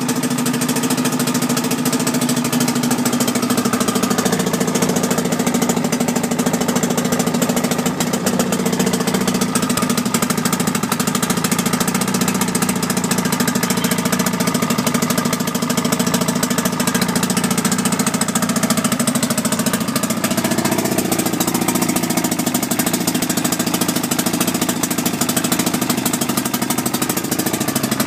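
1989 Force 50 HP two-stroke outboard motor idling steadily, its pitch shifting slightly a few seconds in and again about twenty seconds in. It runs with a damaged exhaust gasket that leaks water.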